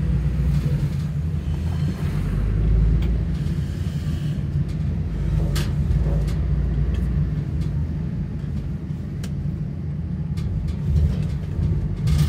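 Car driving slowly through town, heard from inside the cabin: a steady low rumble of engine and tyres, with a few brief knocks.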